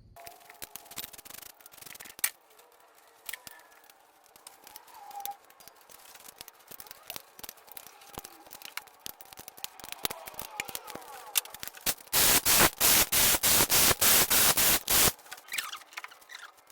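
Tools clicking and knocking against engine parts during a teardown. Near the end comes about three seconds of loud hissing in rapid pulses.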